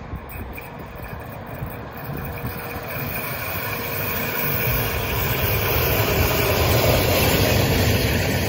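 Train made up of a class 111 electric locomotive hauling a Stadler KISS electric multiple unit, approaching, its rolling noise on the rails growing steadily louder.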